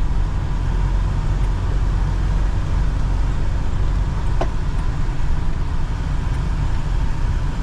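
Vehicle interior noise while driving slowly on a dirt track: a steady low engine-and-tyre rumble heard from inside the cab, with one short sharp click about four and a half seconds in.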